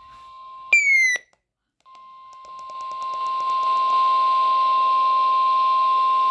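NOAA Weather Radio 1050 Hz warning alarm tone: one steady, piercing tone over radio static, fading in and then holding at full strength. It signals that a warning message follows. Just before the tone comes in, a short, loud chirp falls in pitch.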